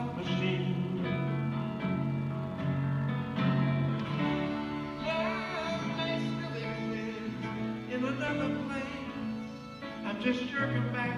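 Live acoustic instrumental break: a harmonica plays a melody with held, bending notes over strummed acoustic guitar.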